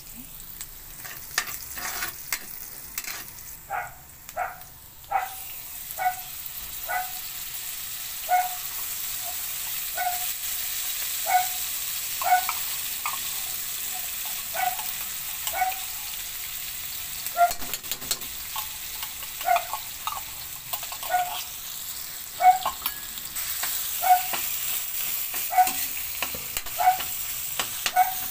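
Garlic, onion and diced potatoes sizzling in a steel wok, with a metal spatula scraping and knocking against the pan about once a second, each stroke giving a brief metallic ring.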